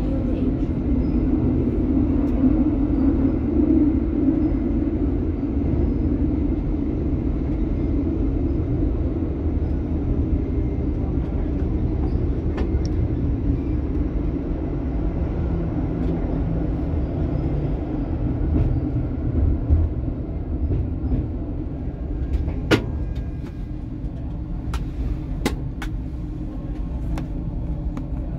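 Tram running along its rails, heard from the driver's cab: a steady rumble with a hum that fades after the first several seconds. A few sharp clicks come in the last few seconds.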